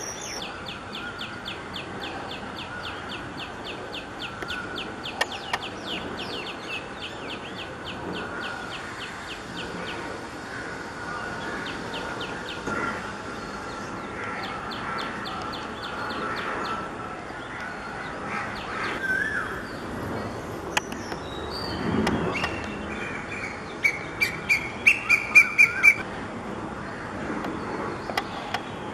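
Birds calling: a fast, high chirping trill for the first ten seconds that returns briefly in the middle, then a run of about seven loud, sharp calls near the end.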